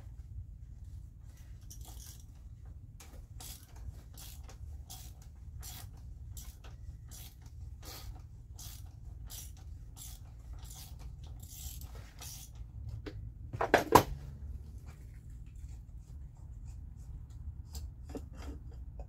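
Socket ratchet clicking as it unscrews the oil filter housing cap on a 3.6 Pentastar V6, in an even run of about two to three clicks a second, with a louder clunk of metal about three-quarters of the way through and a few more clicks near the end.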